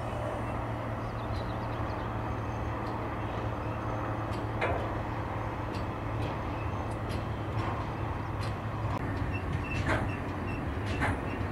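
Freight train of loaded stake flat wagons rolling past: a steady low rumble of steel wheels on the rails, with irregular sharp clicks and knocks and a few faint, brief squeals.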